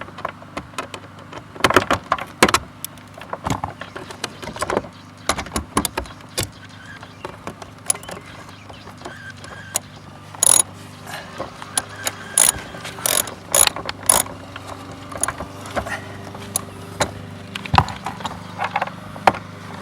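Ratchet wrench with a 10 mm socket clicking in irregular runs as the retaining nuts of the access cover are worked loose, with scattered sharper clicks and rattles of the tool.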